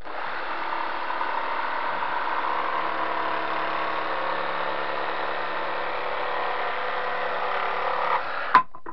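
Makita DJV180 cordless brushed jigsaw running steadily on its normal cutting setting, its blade sawing through a board about 3/4 inch thick while pushed as hard as it will go. The saw stops about eight seconds in, followed by a single short knock.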